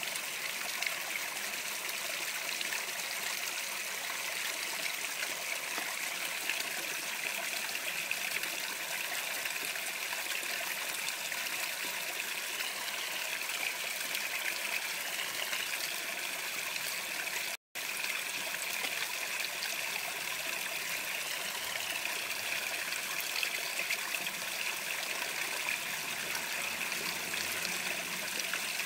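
Steady trickle and splash of water running into a koi pond, even and unbroken except for a split-second gap of silence a little past halfway.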